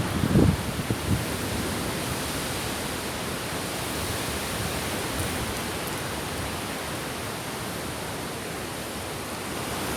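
Steady hiss of a storm, with wind buffeting the microphone in low rumbles in the first second.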